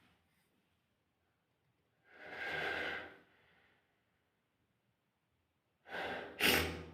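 A person's heavy breaths building up to a sneeze: a long breath about two seconds in, then near the end a quick gasp followed by a sharp, loud sneeze burst.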